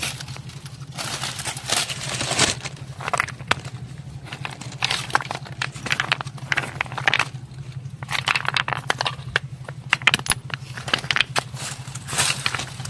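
Dry leaves crackling and rustling in irregular bursts as they are grabbed and pushed aside by hand, with small stones knocking together, over a steady low hum.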